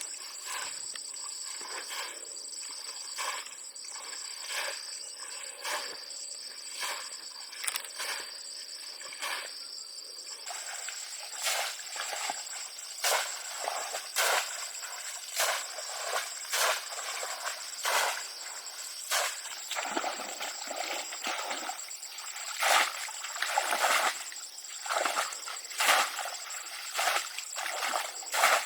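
Repeated wet sloshing strokes, about one a second, growing louder and more regular after about ten seconds, over a steady high-pitched insect drone.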